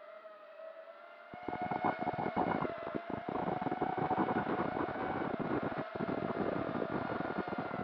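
Brushless motors and propellers of a 5-inch FPV quadcopter, heard from its onboard camera: a steady whine, low at first, then throttled up about a second and a half in, with wind crackling over the microphone as it flies.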